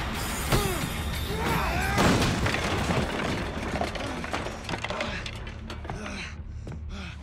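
Staged fist-fight sound: blows and thuds with men's short grunts of effort, and a heavy crash of something smashing about two seconds in, over a music score. It quietens toward the end, leaving scuffling and hard breathing.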